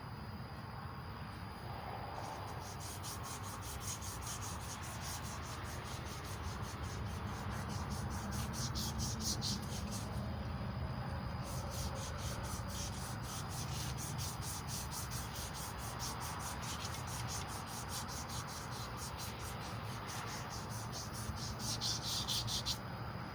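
Medium-grit emery cloth rubbing against a Small Block Chevy 350 crankshaft journal, a continuous rasping scrape as the journal is polished.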